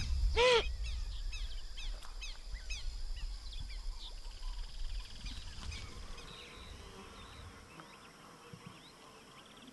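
Wetland wildlife ambience: one short pitched animal call about half a second in, then soft, quick high chirps and a brief fast insect trill over a low rumble. Everything fades away over the last few seconds.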